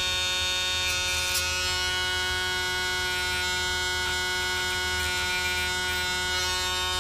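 A cordless, battery-powered Dremel rotary tool with a cut-off wheel, running at a steady high-pitched whine, grinding burrs off small metal transformer tubes with a few light scrapes as the wheel touches the metal.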